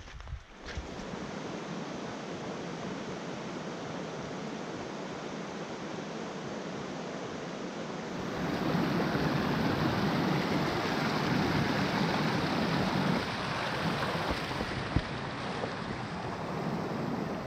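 Shallow rocky brook running over stones and small falls, a steady rush of water that grows louder about eight seconds in, with one short knock near the end.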